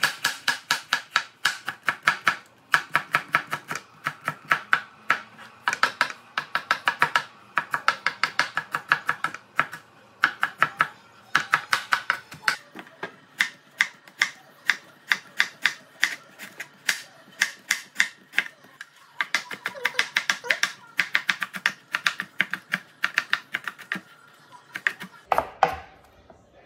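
Chef's knife chopping red onion on a plastic cutting board: quick runs of sharp knocks as the blade strikes the board, about five a second, broken by short pauses.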